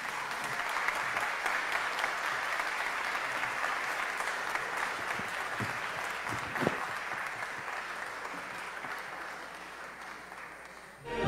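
A roomful of legislators applauding, a sustained round of clapping that slowly fades toward the end.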